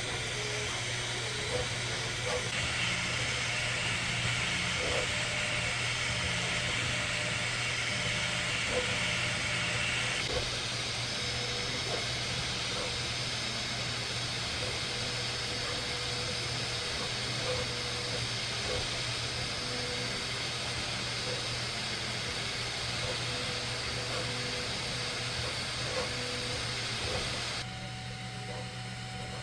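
Bambu 3D printer running mid-print: a steady fan hiss and hum with the stepper motors whirring as the print head moves. The sound shifts abruptly about ten seconds in and drops quieter near the end.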